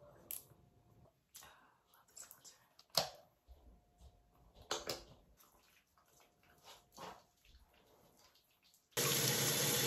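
Bathroom sink tap running briefly near the end. Before that, quiet handling of a plastic skincare tube and hands rubbing cleanser over the face, with a sharp click about three seconds in.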